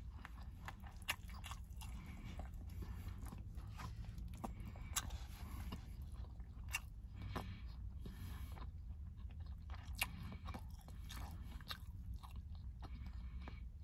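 A person chewing and crunching food close to the microphone, with many scattered sharp clicks.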